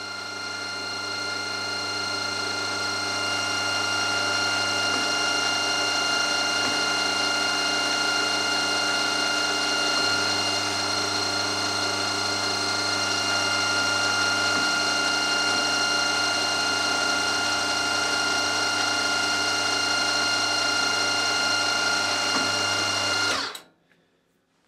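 Milling machine spindle running at 1,600 RPM with an engraving cutter scribing a line in an aluminium block: a steady mechanical whine of many tones over a low hum. It builds up over the first few seconds and stops abruptly about a second before the end.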